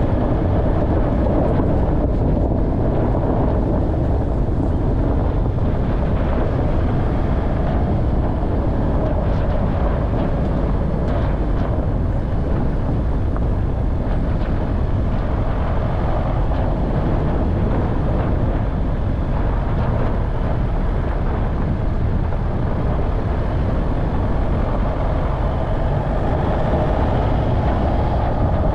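An off-road vehicle driving over rough ground: steady engine and rolling rumble, with a few small knocks and rattles around the middle.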